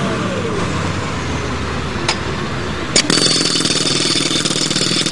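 Diesel truck engine running at raised speed, with a whine that falls in pitch within the first second. About three seconds in, a pneumatic jackhammer driven by the truck's VMAC UNDERHOOD VR70 air compressor starts hammering rapidly and loudly.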